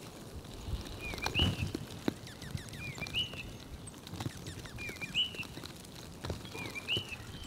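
A bird calling a short, hooked two-part note over and over, five times at an even pace of about one call every two seconds, with scattered soft clicks and taps between the calls.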